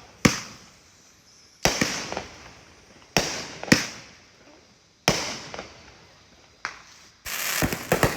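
Consumer aerial fireworks going off: about six sharp bangs, one every second or so, each trailing off, with a denser run of crackling near the end.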